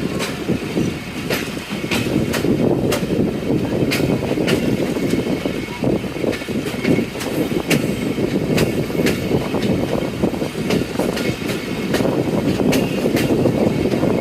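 Passenger train pulling out and running past, a heavy steady rumble of wheels and carriages with sharp clicks every second or so as the wheels cross rail joints.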